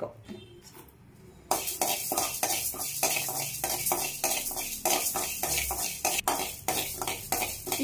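Metal spatula stirring and scraping urad dal as it roasts in an iron kadai. The quick, repeated strokes begin about a second and a half in, with the lentils rattling against the pan.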